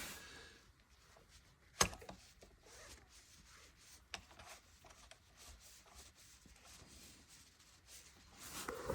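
Faint hand-handling of small metal parts, with one sharp click about two seconds in and a softer click near four seconds: a disc lock and its fittings being worked and tightened by hand.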